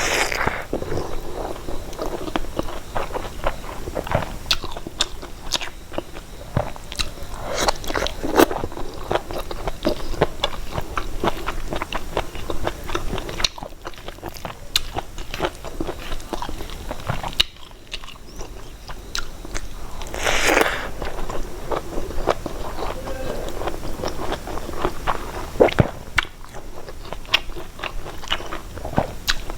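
Close-miked eating sounds: chewing and biting, with many irregular small crunches and wet mouth clicks. A longer, louder noisy sound comes about two-thirds of the way through.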